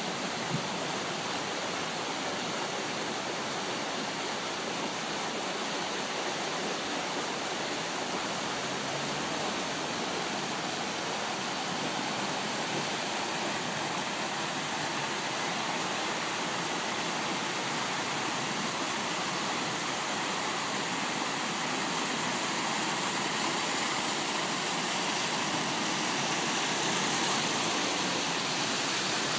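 Muddy floodwater rushing in a steady torrent across a road, a continuous roar of moving water that grows a little louder near the end.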